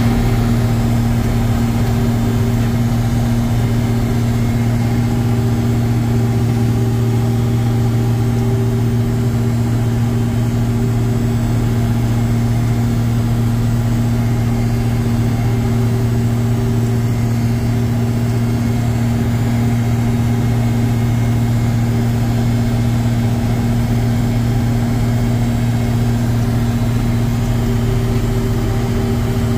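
John Deere 6620 Titan II combine's six-cylinder diesel running at a steady, unchanging pitch while harvesting corn.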